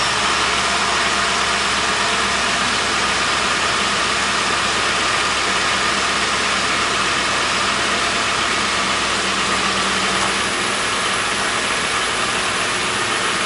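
Ford 4.6L V8 engine idling steadily shortly after a cold start, its fast idle settling down.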